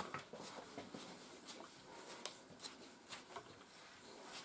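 Hand-stripping a miniature schnauzer's wire coat: faint, irregular scratchy plucks, about two a second, as the ready coat is pulled out and comes away easily.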